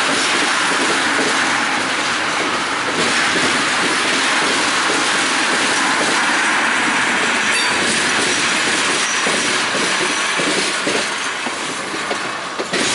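Freight train of tank cars rolling past close by: steady noise of steel wheels on the rails with clickety-clack over the joints, and a faint, brief high wheel squeal about halfway through.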